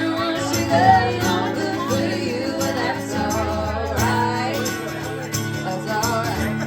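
Live band playing an upbeat rockabilly song, with guitar, bass, cymbal-led drums and singing.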